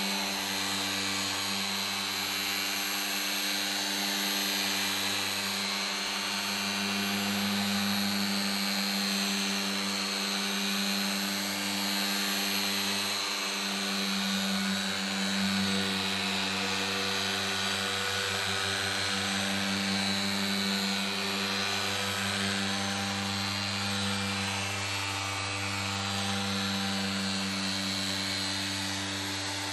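Corded electric car polisher with a foam pad running steadily while buffing compound into a freshly painted car wing: a motor hum with a high whine, its low hum swelling and fading a little.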